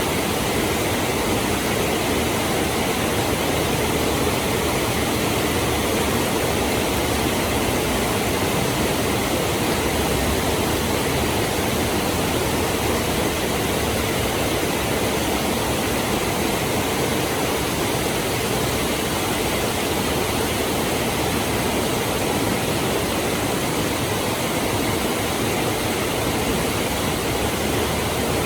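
Heavy rain pouring down in a steady, even downpour, with no break or change.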